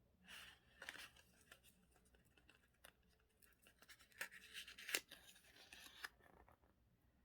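Faint rustling and scratching of paper being handled and worked with craft tools, with several sharp clicks, loudest about four to five seconds in, then stopping about six seconds in.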